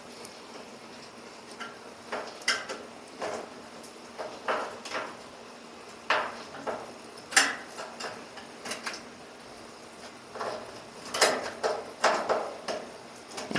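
Irregular clicks and knocks as a replacement leveling foot is handled and screwed into the base of a clothes dryer, with a few louder knocks near the end.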